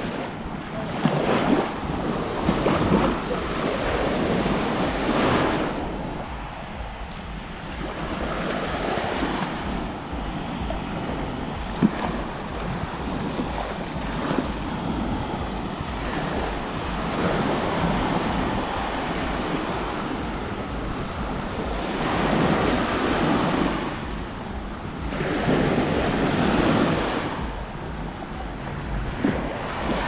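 Small sea waves breaking and washing up on a sandy shore, swelling and fading every few seconds, with a steady low rumble of wind on the microphone.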